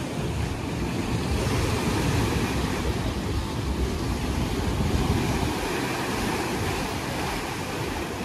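Choppy sea waves breaking and washing against a rocky shore, with wind gusting on the microphone.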